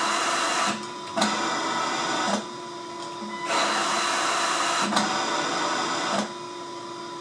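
Comfort Cough II cough-assist device (insufflator-exsufflator) pushing air in three bursts, of about one second, one second and nearly three seconds. Its blower hums steadily between the bursts. In manual mode each inhale or exhale phase lasts as long as the control button is held.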